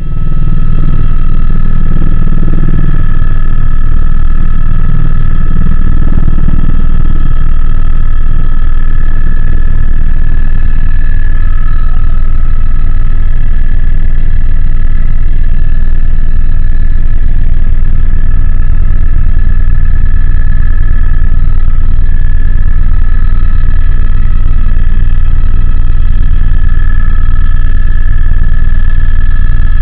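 Inside the cabin of a flying AS350 Écureuil single-engine helicopter: loud, steady rotor and turbine noise, a deep rumble with a steady high whine over it.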